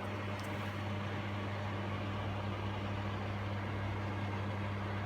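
Portable air conditioner's fan running with a steady low hum, the compressor not yet on. The unit switched itself on without any button being pressed when a battery charger was plugged in, which the owner puts down to electrical noise from the charger.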